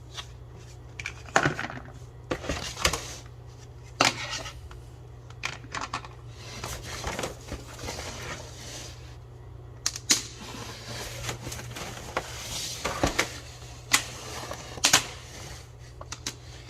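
Irregular hard plastic clicks and knocks with rustling in between, from handling the plastic parts and packaging of a toy race-track set as it is unpacked.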